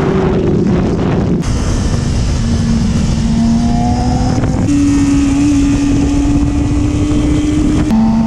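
Sport motorcycle engine running hard at high revs at track speed, heard from an onboard camera with heavy wind noise. The engine note holds steady, steps up in pitch about halfway through and drops back near the end.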